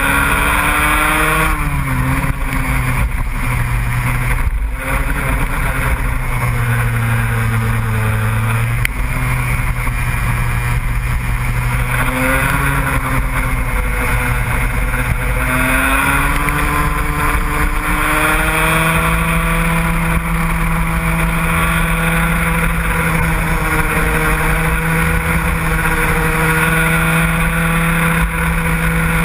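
Racing engines running hard, their pitch rising and falling as they rev up and down. More than one engine can be heard at once, and a steadier engine tone holds through the later part.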